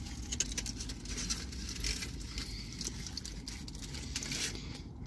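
A bite into a foil-wrapped burger, then chewing, with the foil wrapper crinkling in the hands as soft, irregular clicks and rustles over a low, steady rumble.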